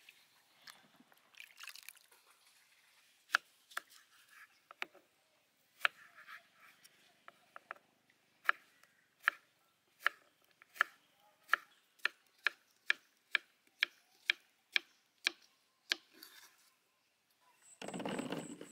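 Kitchen knife cutting cucumber on a wooden chopping board: sharp strikes of the blade on the board, scattered at first, then a steady run of about two cuts a second. Near the end a brief, louder clatter as the cut pieces are dropped into a plastic basket.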